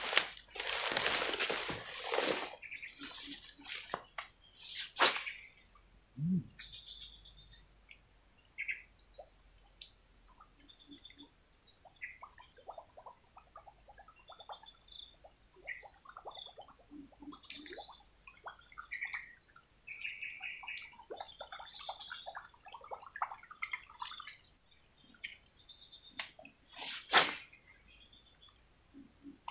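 Insects trilling in a high, steady pulsing buzz, with scattered bird chirps over it. Two sharp clicks stand out, one about five seconds in and one near the end.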